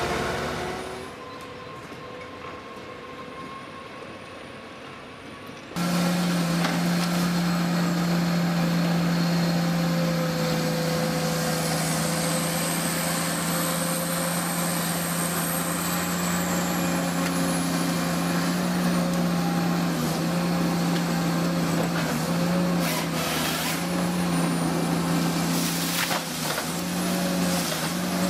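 A Ponsse forest machine running under load: a quieter stretch for about the first six seconds, then a louder, steady engine drone with a strong low hum. A high whine rises and falls about halfway through, and a few sharp knocks come near the end.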